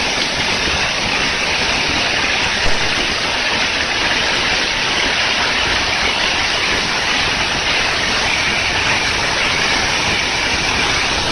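Waterfall pouring: a loud, steady, unbroken rush of falling water.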